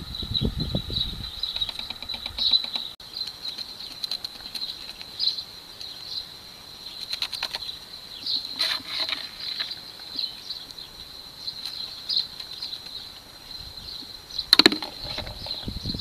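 Steady, high-pitched insect chirping that pulses throughout. In the first second or so there is the rustle of sand being poured from a cut plastic bottle into the gap between two terracotta pots. A few light clicks come near the middle, and a sharp knock about fourteen and a half seconds in.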